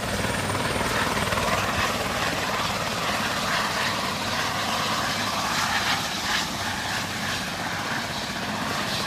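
Airbus H130 (EC130) single-engine helicopter on the ground with its turbine running and main rotor turning steadily.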